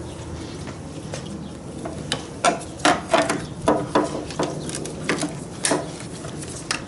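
A series of sharp metallic clicks and clinks, about a dozen at uneven intervals over some three seconds, from hand tools working the motorcycle battery's negative terminal loose.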